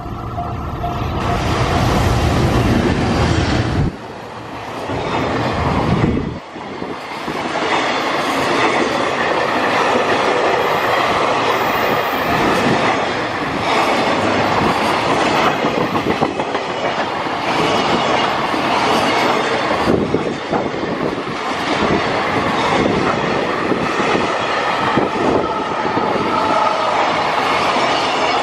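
JR Freight EF210 electric locomotive passing close by with a heavy low rumble in the first few seconds, followed by a long train of container flatcars rolling past with a steady roar and rhythmic clickety-clack of wheels over the rail joints.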